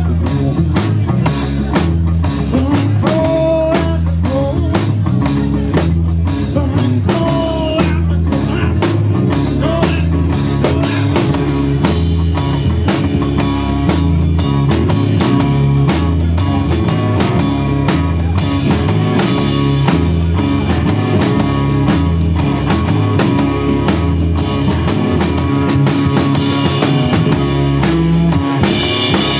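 Live rock band playing together, with drum kit, electric guitar, bass guitar and acoustic guitar. A few bending pitched lines sound in the first several seconds over the steady drum and bass rhythm.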